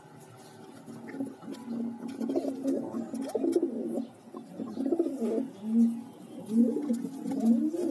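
Domestic pigeon cooing, a run of low, rolling coos that rise and fall in pitch, starting about a second in and getting louder in the second half.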